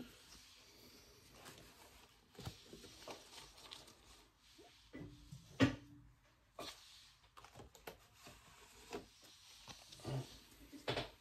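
Baseball trading cards being handled and flipped through: faint rustling with scattered light taps and clicks as cards are set down. One sharper tap comes a little past halfway.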